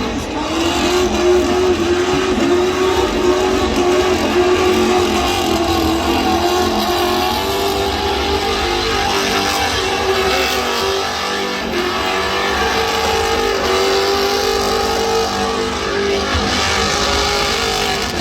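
Car engine held at high revs for a burnout, its pitch wavering and stepping up a little now and then.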